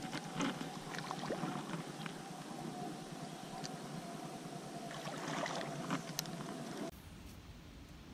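Small clicks and knocks from handling a spinning rod and reel in a kayak, over a steady hiss and a faint steady tone. About seven seconds in, the sound cuts abruptly to quieter outdoor ambience with a low wind rumble.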